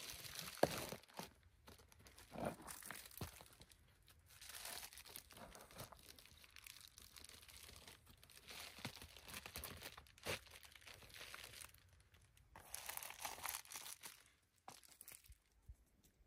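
Irregular spells of crinkling and rustling, with a few sharp clicks and a louder crack about half a second in.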